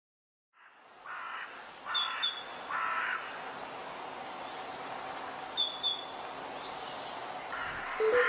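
Woodland ambience fading in: a steady outdoor hiss with birds calling, three harsh caw-like calls in the first few seconds and two pairs of short, high, falling whistled notes.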